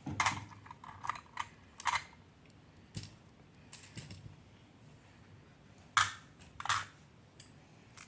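Magnetic building blocks clacking and snapping together as they are handled, an irregular scatter of sharp clicks, the loudest about six seconds in.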